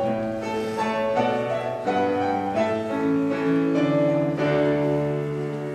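Instrumental recessional music led by piano, slow held chords and melody notes changing about once a second, as the wedding party walks out.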